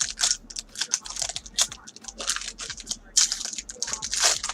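Trading cards and a foil card pack being handled: quick irregular light clicks and brief rustles as cards are slid and the pack is picked up.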